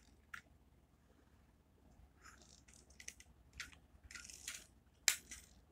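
Faint handling noises of a 1:32 scale die-cast toy car being pushed over a fabric bedspread: a series of short, scratchy rustles, with a sharp click about five seconds in.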